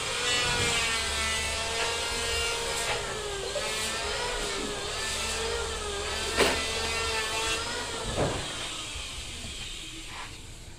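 A small motor-driven tool running with a whine that wavers in pitch, with two sharp knocks about six and eight seconds in; it fades near the end.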